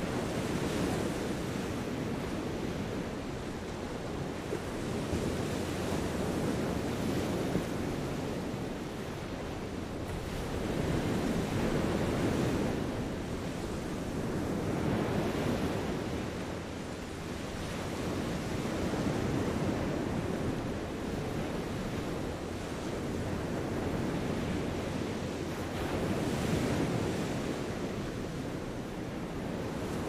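Small sea waves washing onto a sandy shore, swelling and falling back every few seconds, with wind on the microphone.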